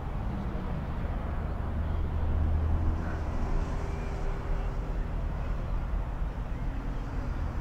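Avro Lancaster's four Rolls-Royce Merlin piston engines making a low, steady drone that grows louder about two to three seconds in.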